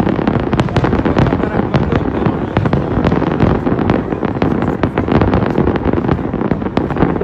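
Fireworks display: a dense run of many sharp bangs and crackles, several a second, over a continuous rumble of bursts.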